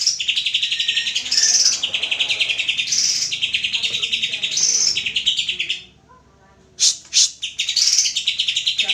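Greater green leafbird (cucak ijo) singing long, fast, rattling trilled phrases. About two-thirds of the way through it breaks off for under a second, gives two sharp notes, then goes back to trilling.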